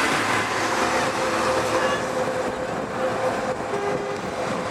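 Steady rumble of heavy lorry traffic, with diesel truck engines running in the stalled queue.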